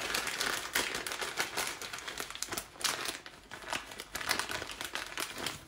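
Plastic bag crinkling as it is handled: irregular rustling crackles, thinning out about halfway through.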